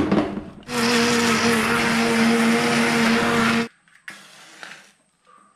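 A sharp knock, then an electric mixer grinder runs for about three seconds with a steady motor hum under the noise of the grinding, and cuts off suddenly. It is grinding onion, garlic, ginger and tomato into a paste.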